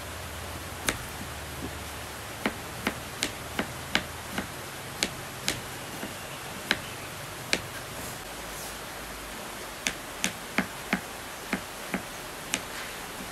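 Kitchen knife striking a cutting board while slicing a shallot and then garlic cloves: irregular sharp taps, about twenty, with a pause of a couple of seconds in the middle, over a steady background hiss.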